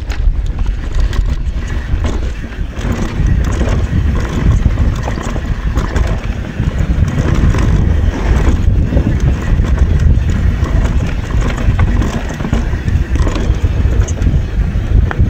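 Mountain bike descending a rough dirt trail at speed: heavy wind rumble on the action camera's microphone over tyre noise, with frequent knocks and rattles from the bike as it hits rocks and roots.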